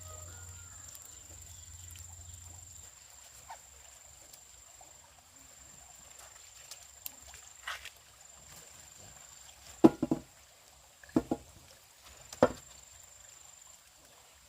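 Four sharp knocks, in a quick pair about ten seconds in and then two single ones over the next two and a half seconds, over a steady thin high tone.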